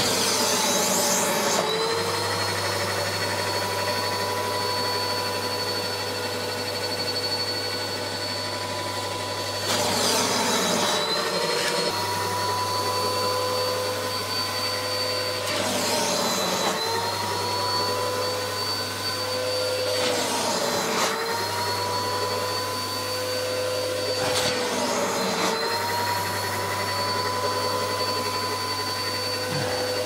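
Britex carpet and upholstery vacuum cleaner running with a steady whine as its upholstery tool works over a couch cushion. About five times its pitch dips briefly with a rush of noise, and a low hum cuts in and out.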